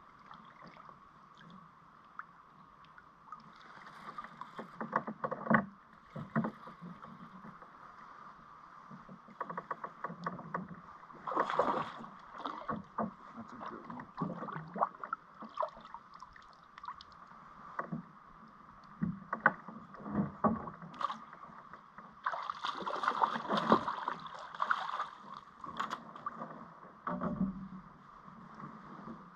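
Water splashing and dripping around a fishing kayak, with knocks and clicks of paddle and gear against the hull, as a hooked fish is played and brought to a landing net. The splashing is loudest about 11 seconds in and again about 22 to 25 seconds in.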